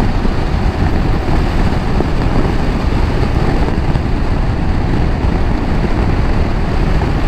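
KTM 390 Adventure single-cylinder motorcycle under way: a steady rush of wind and engine noise while riding.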